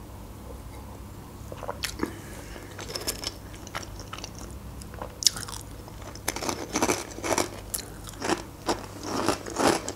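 Crunching and chewing of dry rye croutons, a few scattered crunches at first, then quick repeated crunchy bites from about six seconds in.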